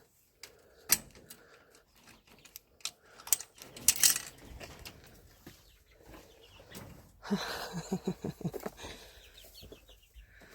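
Backyard chickens feeding on sweetcorn: scattered sharp pecking taps and clicks, then about seven seconds in a quick run of low clucks.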